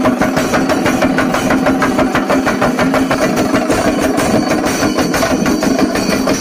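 A large chenda melam ensemble of Kerala cylindrical drums beaten with sticks, keeping up a rapid, steady, loud beat.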